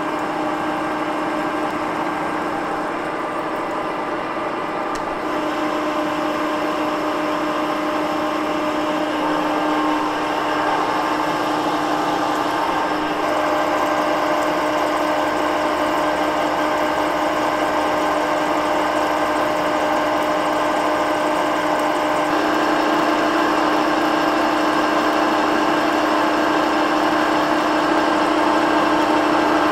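Cincinnati 2ML horizontal milling machine running under power feed, its arbor-mounted cutter cutting a keyway into a large steel shaft with oil coolant poured on the cut. The machine's steady hum and the cutting noise grow louder in a few steps through the pass.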